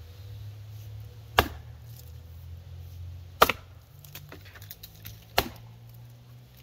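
Six-pound Council Tool FE-6 axe chopping into a standing block of wood: three sharp strikes about two seconds apart, the second the loudest.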